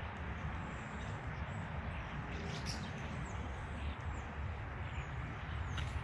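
Steady low outdoor rumble with a few faint, short calls from a large flock of birds flying overhead.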